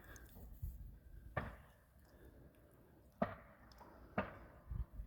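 Faint, unevenly spaced hammer strikes from carpenters building a house addition: about five separate knocks, the loudest a little past the middle.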